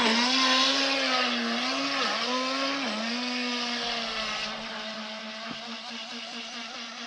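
RC speedboat's motor whining at full throttle through a 'boat burnout', spinning and churning spray. Its pitch wavers a few times early on, then holds steady and fades as the boat runs off across the water.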